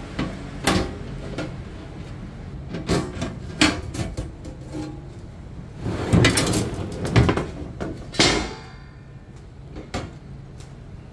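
Thin perforated sheet-metal mounting plate being handled in and out of a metal cabinet: scattered clanks and knocks, a longer rattling scrape of metal about six seconds in, and a sharp clatter just after eight seconds as the plate is set down, followed by a light knock as a box is placed on it.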